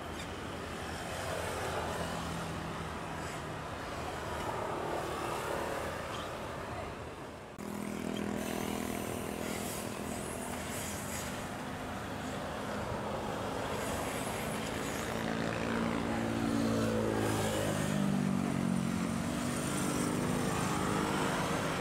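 Ship's engines running, mixed with harbour noise. A sudden change about seven and a half seconds in, after which steady engine tones shift up and down in pitch.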